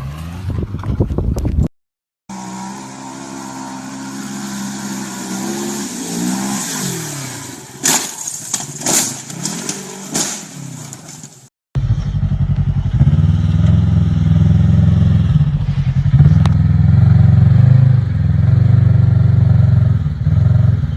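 Engines of off-road quads or side-by-sides heard across several clips with abrupt cuts. In the middle, an engine's pitch rises and falls as it revs, with a quick cluster of sharp knocks and clatter. After a cut near the middle, a loud, steady, low engine drone runs to the end.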